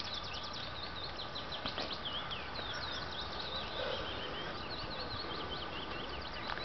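Small songbirds twittering in a steady stream of quick, high chirps over constant background noise.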